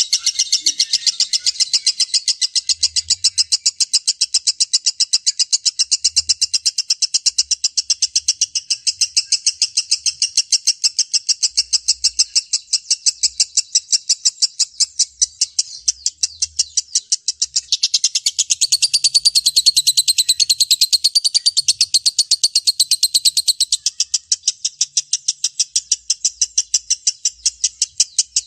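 Lovebird singing a long unbroken 'ngekek': rapid, evenly repeated high chattering notes, several a second. From about 18 to 24 seconds in, a busier, higher chatter joins over it.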